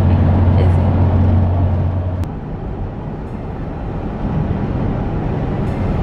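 Road and engine noise inside a moving car's cabin: a steady low drone that stops abruptly with a click about two seconds in, leaving a quieter rumble.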